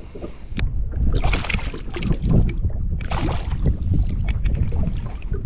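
Wind buffeting the microphone: a steady low rumble, with two louder rushing bursts about a second in and about three seconds in.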